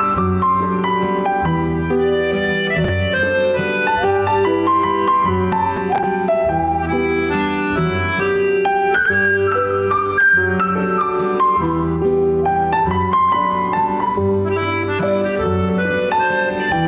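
Instrumental passage of an Italian song: a held melody line over piano chords and a steady bass line.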